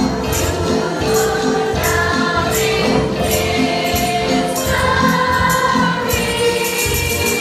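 Children's choir singing a Christmas carol over music with a steady beat, high percussion strokes about twice a second.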